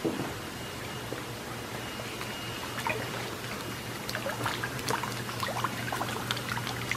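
Water splashing and dripping as a long-handled mesh dip net is swept through a shrimp tank and lifted out, water draining through the mesh, with the drips thickest from about four seconds in. A steady low hum runs underneath.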